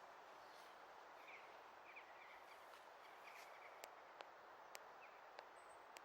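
Near silence outdoors: a faint steady hiss with a few faint, short bird chirps, and about five sharp ticks in the second half.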